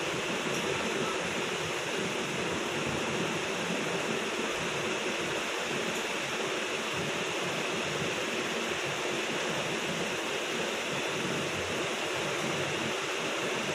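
Steady, unchanging hiss of background noise with no other events.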